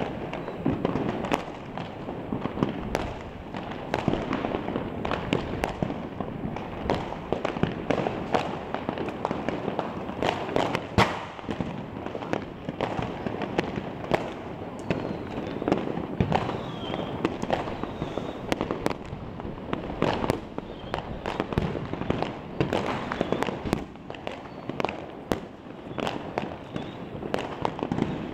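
Massed fireworks and firecrackers going off all over a city, heard from a distance: a continuous rumble of bangs with dense crackling and frequent sharp reports. One louder bang comes about eleven seconds in.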